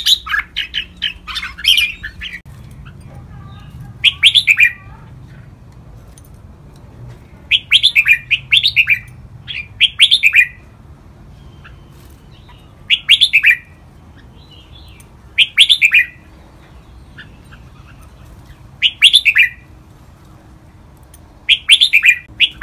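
Red-whiskered bulbul singing short, clear warbled phrases, one every two to three seconds, with a busier run of notes at the start.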